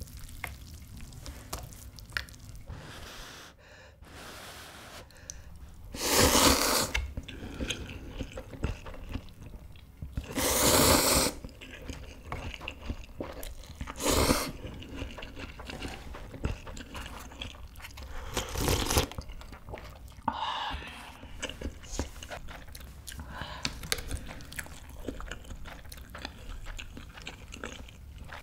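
Close-miked eating of instant ramen: about four loud noodle slurps of around a second each, with wet chewing and mouth sounds between them.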